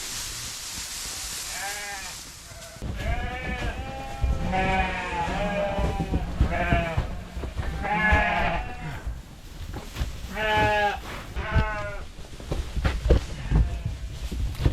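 Dorper sheep bleating, many calls one after another and overlapping, with a low rumble underneath from about three seconds in. A hiss sounds in the first couple of seconds.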